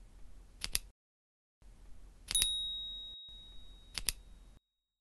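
Subscribe-button animation sound effect: a mouse double-click, then a click with a bell ding that rings out for about a second, then another double-click.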